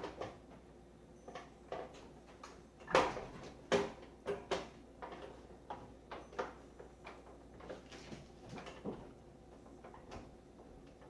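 Plastic clicks and knocks of microwave door trim and latch parts being handled and pressed into place, with a couple of sharper knocks about three seconds in and scattered lighter taps after.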